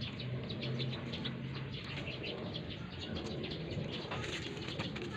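Birds chirping in quick, short notes, with a low dove-like cooing underneath during the first couple of seconds.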